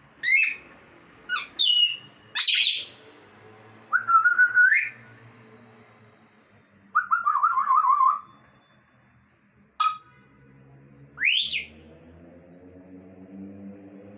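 Parrot whistling and calling: a string of short rising whistles and squawks, a long wavering trilled whistle about seven seconds in, a sharp call near ten seconds, and a rising whistle just after eleven.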